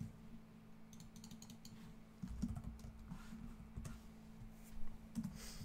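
Typing on a computer keyboard: a quick run of key clicks about a second in, then scattered, heavier key strikes, over a low steady hum.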